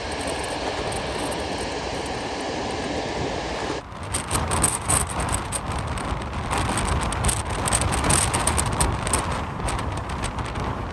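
The six turbofan engines of an Antonov An-225 running with a steady roar and a faint whine. About four seconds in, the sound cuts abruptly to a louder, gusty roar with wind buffeting the microphone.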